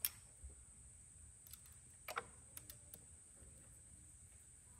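Small plastic clicks and taps from hands working on the open case of a JB4 piggyback unit and the Bluetooth module's harness: one sharp click at the start, then a quick run of small clicks about two seconds in, over faint room tone.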